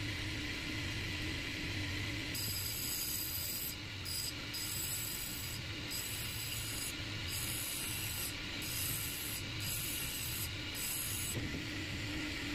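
Motor-driven grinding wheel running with a steady hum. From about two seconds in, the metal tip of a wooden spinning top is pressed against it in a string of short hissing grinds with brief breaks, grinding the tip to a point.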